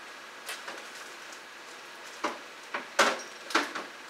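About five light clicks and taps as dried whole spices (star anise, cloves and a cinnamon stick piece) are pushed about on a kitchen countertop by a finger; the sharpest comes about three seconds in.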